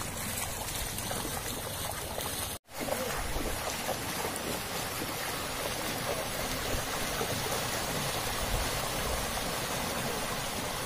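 Muddy floodwater running steadily over and along a flooded road, a continuous rush of water, with a brief dropout about two and a half seconds in.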